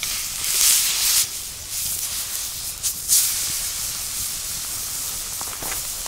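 Thick beef round roast searing in a very hot iron frying pan: loud sizzling that surges twice, about half a second in and again about three seconds in, as the roast is turned onto a fresh side, then settles to a steady sizzle.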